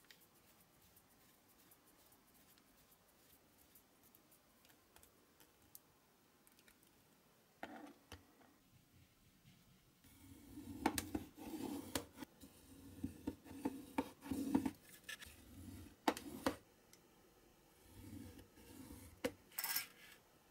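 Utility knife cutting a printed card box against an aluminium ruler, heard as a series of short cutting strokes and sharp clicks through the second half. The first half holds only faint small ticks of hand work on a small diecast model.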